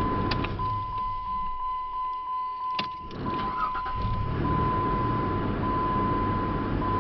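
2005 Jeep Grand Cherokee's 3.7-litre V6 running after a test start on a newly fitted starter motor, showing the starter now works. A steady high tone sounds over it, broken briefly now and then, and a sharp click comes about three seconds in.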